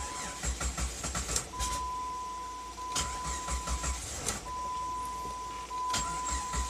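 2000 Jeep Grand Cherokee engine being cranked by its starter in several short tries, struggling to catch: hard starting with a number 2 cylinder misfire code. A steady high electronic tone sounds behind it, broken by short gaps.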